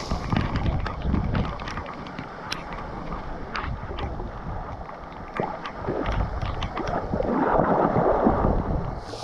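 Muffled water sloshing and splashing around a person wading in a waterfall pool, with scattered small clicks and a low rumble; a louder stretch of splashing comes near the end.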